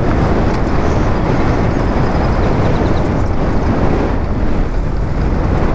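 Steady rumble of a bike's tyres rolling over a gravel path, mixed with wind rushing over the riding camera's microphone.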